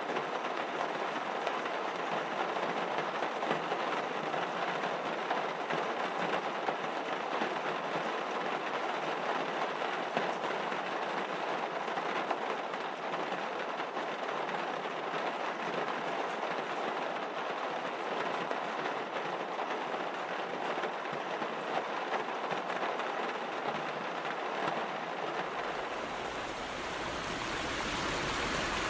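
A steady rushing noise with no distinct events, switching abruptly to a fuller, broader rush near the end.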